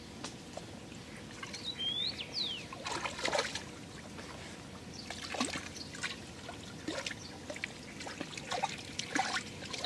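A hooked crucian carp splashing at the water's surface as it is played in on a float rod, in a string of short splashes. A bird chirps briefly a couple of seconds in.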